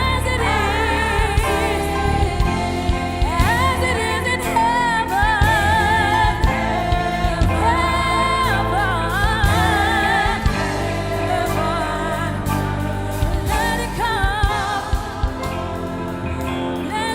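Gospel praise-and-worship song performed live: several voices singing with strong vibrato over a band accompaniment.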